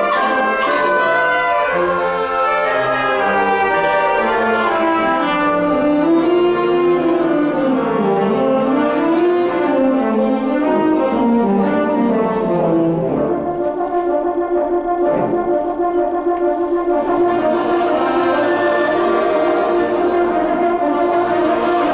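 Concert wind band playing, with brass to the fore: a few sharp struck notes at the start, then a winding melody in the lower-middle register. About halfway through, the band settles into a long held chord.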